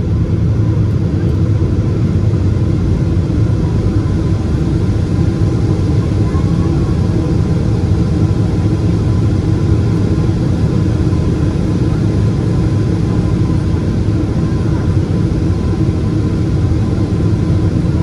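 Boeing 777 airliner's engine and airflow noise heard as a steady, unbroken rumble, deepest in the low end.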